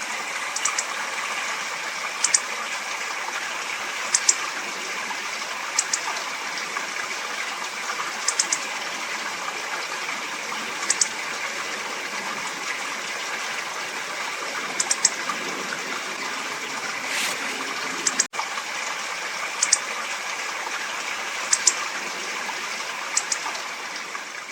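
Hawfinch giving short, sharp, high-pitched calls, often two or three in quick succession, repeated every second or two over a steady rushing background noise.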